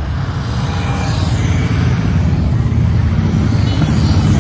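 A group of motorcycles riding past at parade pace, a steady low engine rumble that grows louder as the bikes draw near.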